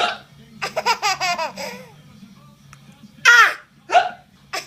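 A small child laughing in quick, high-pitched bursts, then two short, sharp hiccup yelps about three seconds in.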